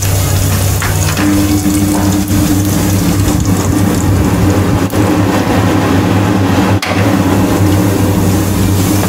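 Cumin seeds sizzling and crackling in hot ghee, over a steady low hum.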